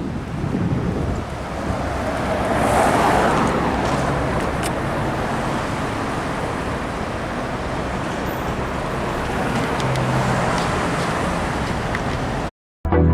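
Road traffic noise, with one vehicle passing loudest about three seconds in. It cuts off suddenly near the end.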